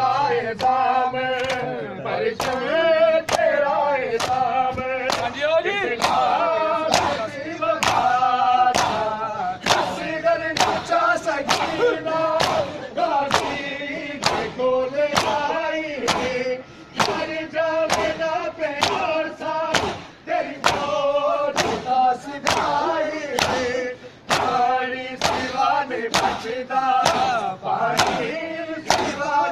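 A crowd of men chanting a mourning lament (noha) in unison, with a steady beat of sharp open-hand slaps on bare chests: matam, the ritual chest-beating of Shia mourning.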